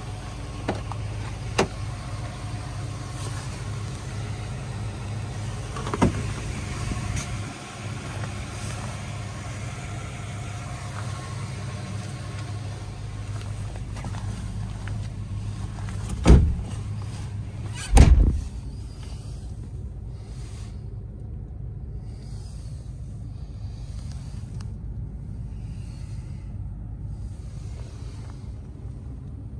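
A Ford F-250 pickup's engine idling with a steady low hum. There are a few light knocks in the first seconds and another about six seconds in, then two loud thumps about sixteen and eighteen seconds in, after which the high hiss drops away.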